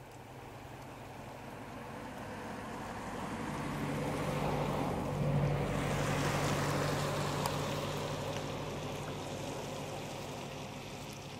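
A passing engine: a low steady hum under a rushing hiss that swells over about five seconds, peaks mid-way and fades away.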